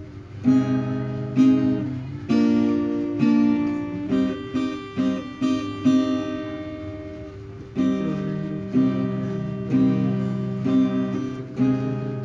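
Background acoustic guitar music: plucked chords about once a second, each ringing out and fading before the next.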